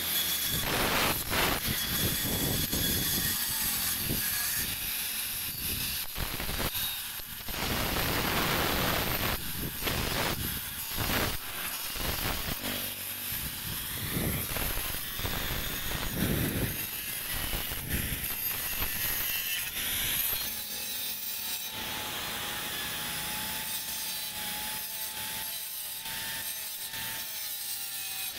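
Handheld angle grinder grinding and smoothing a white stone statue: a rasping grind that swells and drops as the disc is pressed and moved over the stone. After about twenty seconds it gives way to quieter rubbing strokes against the stone.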